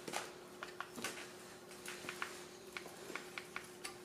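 Light, irregular metal clicks and taps, two to four a second, from hand tools (locking pliers and a ratchet) being handled on a wheelchair caster fork and stem nut, over a faint steady hum.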